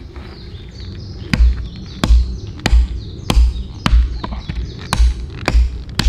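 Hatchet with its blade set in a fallen branch knocked down against a wooden stump to split and shape a tent peg. A steady series of sharp wooden thuds, one about every two-thirds of a second, starting about a second and a half in.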